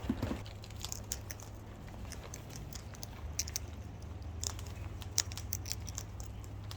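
Birds' beaks pecking at and chewing food, a scatter of small irregular clicks and crunches over a low steady hum.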